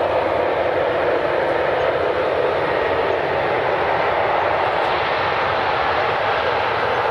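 Jet airliner engine noise: a steady, loud rushing sound with no clear pitch, holding level throughout.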